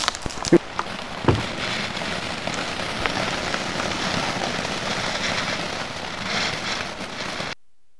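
Two sharp firework pops, then a dense, steady crackling from a crackling firework. The sound cuts off suddenly near the end.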